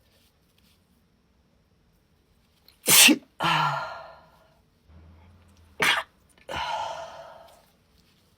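A woman sneezing twice, about three seconds apart. Each sneeze is a sharp, loud burst trailing off over about a second.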